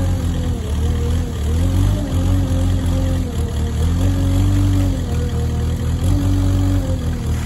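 Kubota wheel loader's diesel engine running, its pitch dipping and rising several times as the operator works the bucket hydraulics. Under it, decomposed granite pours from the bucket into a pickup bed.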